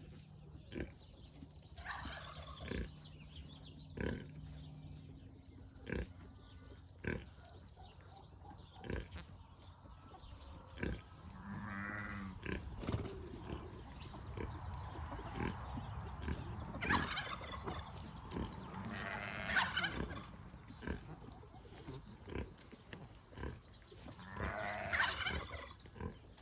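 Farm animals calling, with loud calls about halfway through, twice near two-thirds of the way, and once more near the end, over scattered sharp clicks.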